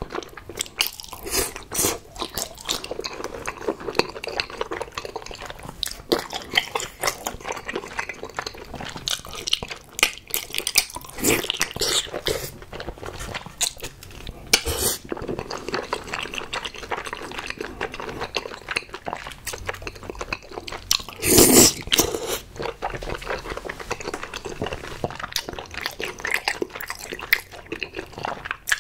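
Close-miked eating sounds: sticky, wet chewing of chewy rice cakes in thick spicy sauce, with slurps as they are sucked in from chopsticks and the odd chopstick click. One louder burst about two-thirds of the way through.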